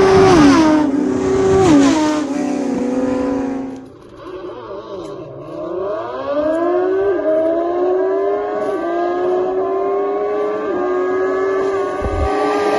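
Racing motorcycles at full throttle in a drag race, engines revving up through the gears: the pitch climbs and drops sharply at each upshift. About four seconds in, the sound cuts to another run, which starts low, then climbs steadily with an upshift every second or two as the bikes accelerate.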